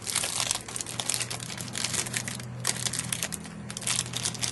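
Trading-card pack wrapper crinkling and tearing as it is opened by hand, a dense irregular crackle, over a steady low hum.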